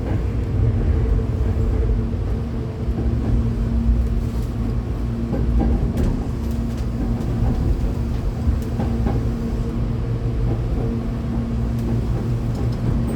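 Inside a Hankyu 8200-series electric train car: a steady low rumble of the train running on the rails, with a constant electric hum from the train's electrical equipment and a few faint clicks.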